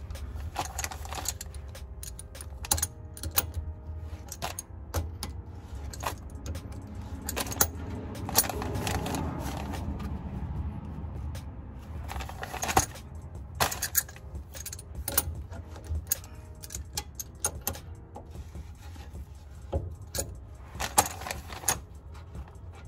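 Scattered metallic clinks and rattles of hand tools against metal while working at the rear differential's fill plug, over a low steady hum.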